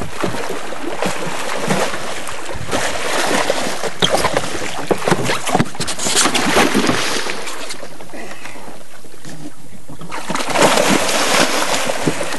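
Water splashing and churning as a hooked tarpon thrashes at the surface beside the boat, in irregular surges. There is a quieter spell about two-thirds of the way through, then a burst of heavier splashing near the end.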